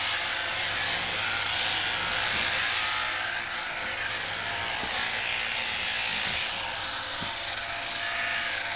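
Sheep-shearing machine handpiece running steadily, its comb and cutter buzzing through the fleece as a ewe is shorn.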